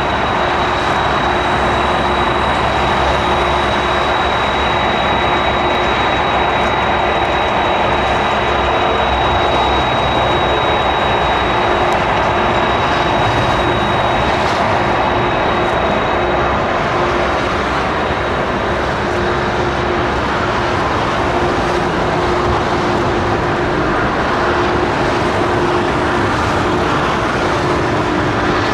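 Boeing 747 freighter's four turbofan engines running at taxi power: a steady, loud jet roar. A thin high whine fades out about halfway through, while a lower steady hum carries on.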